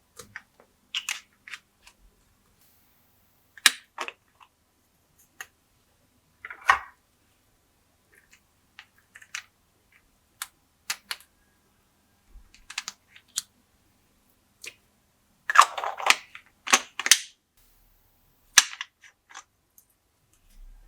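Glossy slime being pressed and worked by hand, giving sharp, irregular clicks and pops, with a quick run of several louder pops near the end.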